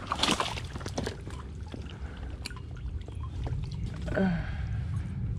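Boots wading through a shallow, rocky creek, water splashing and sloshing around the feet in irregular bursts, the biggest splash just after the start. A brief voice sound about four seconds in.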